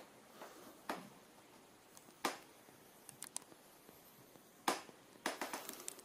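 A few light clicks and knocks at irregular intervals over a quiet room, the sharpest a little before five seconds in, then a quick run of clicks near the end.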